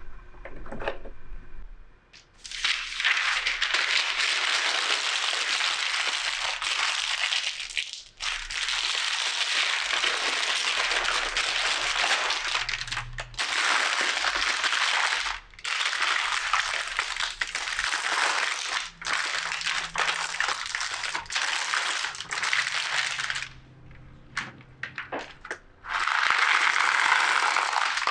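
Parchment paper being crumpled and crinkled by hand, in long stretches with short pauses, to soften it for lining a tart crust. Near the end, ceramic pie weights poured from a plastic container onto the paper, rattling.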